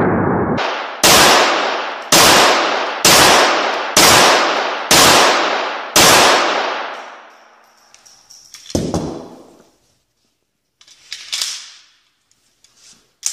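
Semi-automatic pistol fired six times, about one shot a second, each shot ringing on in the echo of a concrete-block indoor range. Then come a few softer metallic clacks and clinks as the pistol is handled after the string.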